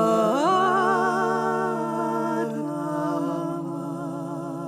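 Jewish liturgical singing: voices holding long, wavering notes on a drawn-out syllable, with one voice sliding up into a higher note near the start while a lower note holds beneath.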